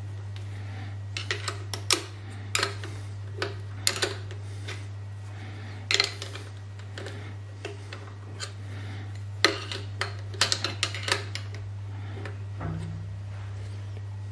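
Sharp, irregular metal clicks and clinks of a spanner and bolts as a power-feed motor bracket is fastened to a milling machine table, some in quick clusters, over a steady low hum.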